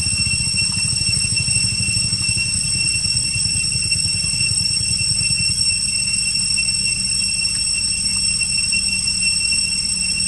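A steady, engine-like low rumble with a fast even pulse, under a constant high-pitched whine.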